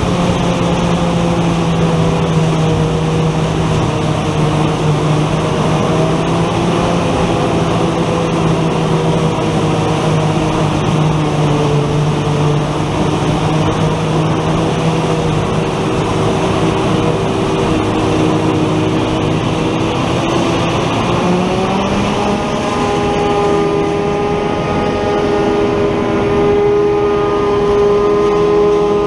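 Tractor engine running steadily, heard from inside the cab, with a slight rise in engine pitch about three-quarters of the way through as it revs up.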